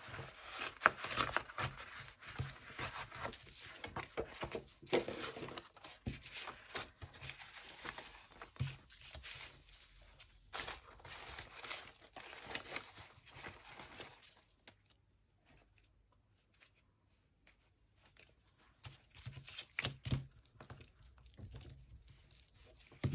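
Sheets of paper and card rustling, crinkling and sliding as they are handled and sorted through. The rustling is irregular for most of the stretch, goes much quieter for several seconds past the middle, then picks up again with a few scattered rustles.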